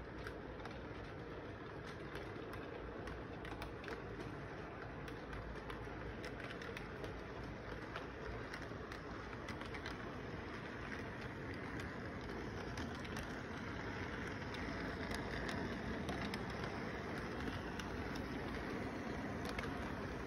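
Model train running on its track: a steady rumble with frequent small clicks of the wheels, growing louder over the second half as the locomotive comes close.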